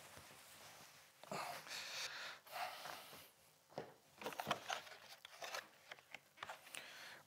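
Clothes rustling and crinkling as garments and a costume are pulled out of a suitcase, in several swells, then scattered light clicks and knocks of handling.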